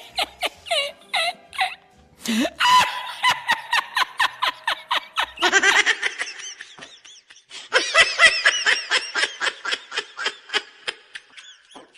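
Bursts of high-pitched laughter: a rapid string of short laughs several per second, breaking off briefly a little past the middle and then starting again.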